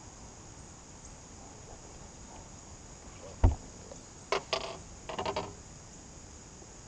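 Steady high insect buzzing from the trees, broken by one loud thump on the boat's deck about three and a half seconds in. A few short, high-pitched squeaks follow in two quick clusters about a second later.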